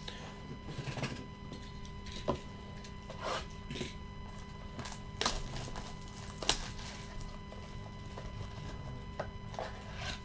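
Trading-card mini box and foil pack being handled and opened: scattered rustles, crinkles and light taps of cardboard and foil wrapper, the sharpest about five and six and a half seconds in, over a faint steady hum.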